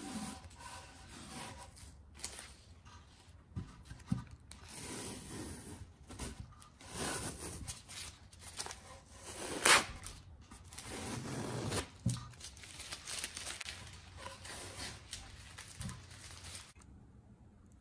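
Masking tape being peeled off painted plywood speaker cabinets in several long tearing pulls, the sharpest rip a little under ten seconds in, with a few light knocks in between.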